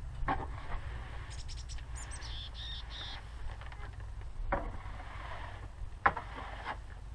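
Long-handled tool scraping and dragging old hay and droppings off a chicken house's shower-liner floor, in a few separate scrapes and knocks. A bird chirps several times from about one to three seconds in, over a low steady rumble.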